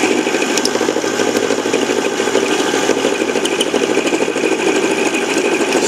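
7x10 mini lathe running with a milling cutter taking a cut in the workpiece: a steady, dense grinding chatter from the cut over the motor. A high whine fades out about half a second in.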